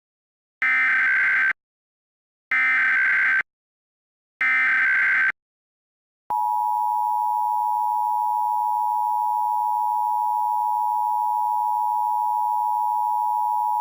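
Emergency Alert System alert tones for the national periodic test. Three short bursts of SAME header data tones come about a second apart. About six seconds in, the steady two-tone attention signal starts and holds.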